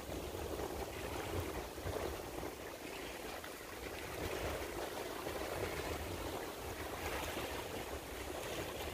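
Steady rushing outdoor ambience with a low rumble underneath, swelling and easing slightly, with no distinct events.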